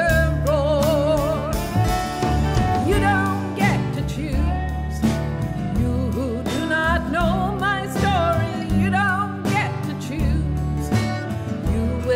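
Music: a song with a singing voice carrying a melody with vibrato over sustained instrumental accompaniment.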